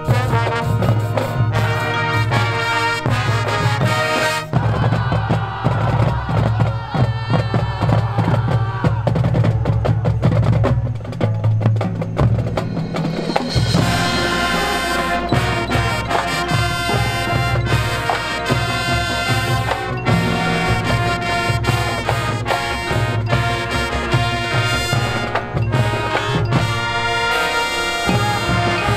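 Marching band playing its field show: brass over marching drums and front-ensemble percussion. About five seconds in, the sound thins to mostly percussion and softer parts, and the full brass comes back in at about fourteen seconds.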